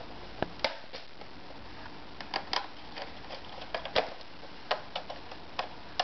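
A small screwdriver driving a screw back into the plastic underside of a Dell XPS laptop, with fingers on the case: a string of about fifteen irregular sharp clicks and taps.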